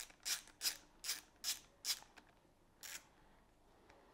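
A screwdriver backing out a screw from a steering-wheel paddle-shifter mount: a short scratchy rasp with each turn, about two or three a second, stopping about two seconds in, with one more near three seconds.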